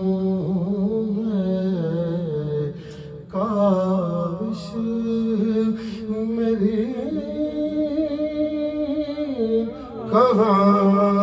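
A man's solo voice singing a naat, an Urdu devotional poem, with no instruments. It moves in long drawn-out melodic phrases with ornamented, wavering held notes, and breaks for a breath about three seconds in and again near the end.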